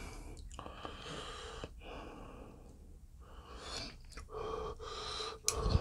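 A person breathing close to the microphone, with a soft knock near the end.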